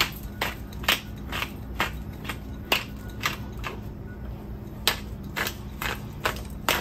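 Hand-twisted pepper grinder cracking peppercorns: a crunching click about twice a second, pausing for about a second near the middle.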